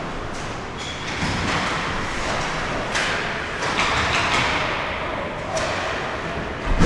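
Ice hockey play on the rink: a steady hiss of skates and arena noise with several sharp stick-and-puck knocks, and one loud thump just before the end.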